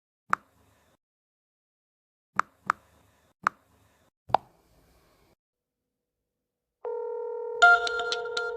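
A few sharp phone touch-screen clicks, five in the first four and a half seconds. Then, about seven seconds in, a steady call tone of two held pitches starts, and near the end a ringtone melody of quick repeated high notes rings over it: an outgoing call and an incoming call at the same time.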